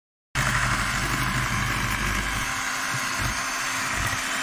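Electric hand mixer running steadily, its beaters whipping warm jelly in a bowl. It comes in after a split-second dropout at the start.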